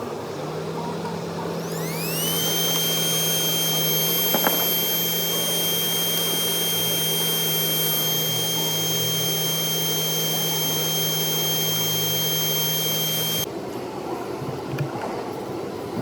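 A small motor spinning up to a steady high whine with an airy rush, running about eleven seconds under a low steady hum, then cutting off suddenly.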